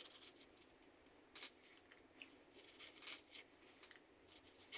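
Near silence, with a few faint, short scrapes and clicks from a small carved wooden piece being handled in the fingers.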